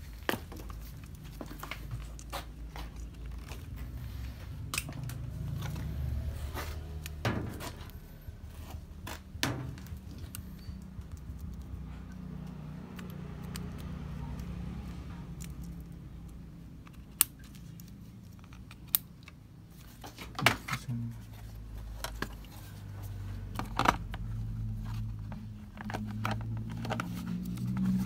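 Hands working the plastic control board and wiring of a washing machine: rustling and scraping with scattered sharp clicks as wire connectors are pushed onto the circuit board, over a low steady hum.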